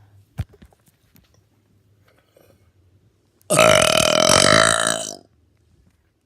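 A person's single long, loud burp, lasting nearly two seconds and starting about three and a half seconds in. A short sharp click comes shortly before it, near the start.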